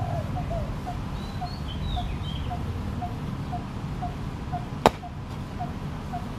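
A single sharp strike of a hoe blade chopping into the ground, about five seconds in. Behind it a bird repeats a short note about twice a second, and there is a brief higher chirping call early on.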